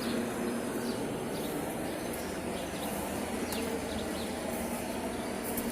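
Steady outdoor background noise, like distant traffic, with a low hum and a few faint, brief bird chirps.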